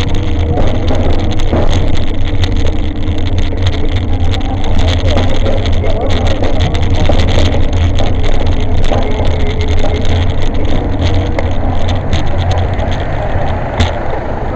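Riding noise from a bike-mounted camera on a moving e-bike: a steady, loud rumble with many small rattles and clicks as the bike rolls over block paving.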